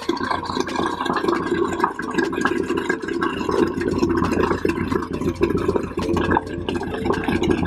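Royal Enfield single-cylinder engine running with its rocker cover off, the exposed rocker arms and hydraulic tappets clattering in a rapid, even ticking as oil from a newly fitted BS4 oil pump floods over them.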